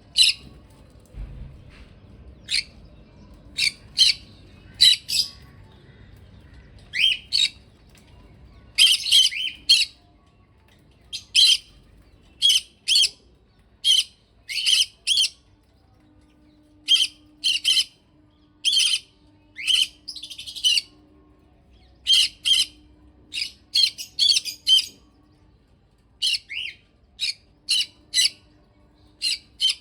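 Small pet parrot giving short, sharp, high-pitched chirps and squawks at irregular intervals, often in pairs or quick runs of three or four.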